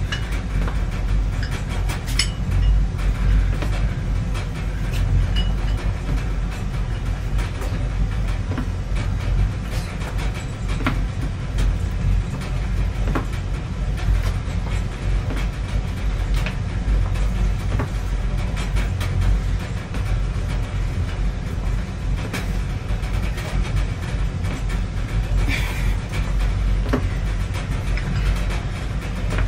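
A steady low rumble with scattered light clicks and knocks.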